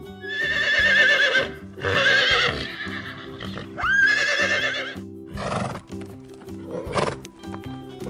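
A horse whinnying three times, each a wavering, quavering call, the third rising at its start. Two shorter sounds follow near the end. Background music plays underneath.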